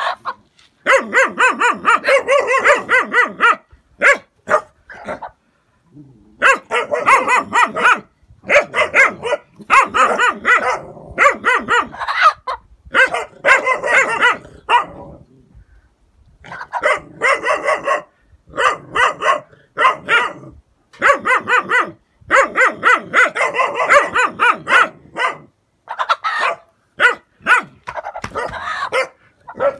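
Gaddi puppies barking during play, in repeated bursts of a second or two with short pauses between them.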